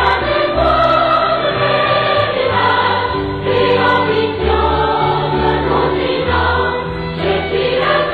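Background music: a choir singing slow held chords.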